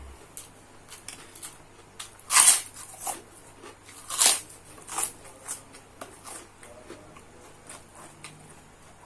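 Close-up eating sounds of a person chewing a mouthful of fried rice, with small mouth clicks and a few short, louder smacks, the loudest about two and a half and four seconds in.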